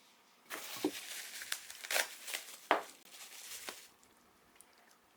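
Keyboard packaging being handled and unwrapped, with rustling and crinkling and a few sharp clicks and knocks, for about three seconds after a short quiet start.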